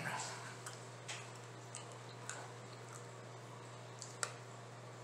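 Faint, irregular mouth clicks and smacks of a man chewing a burger, with a sharper click about four seconds in as he takes hold of the burger, over a low steady hum.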